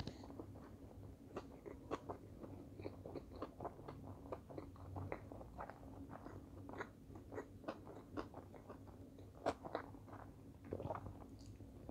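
Faint, close-up mouth sounds of a person chewing a mouthful of sushi roll: many small, irregular wet clicks and smacks.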